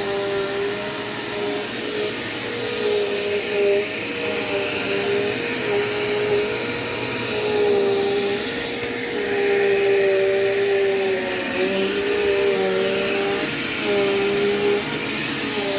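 Dirt Devil Quick Power vacuum cleaner running, its motor tone wavering slightly in pitch over a steady high whine and a rush of air.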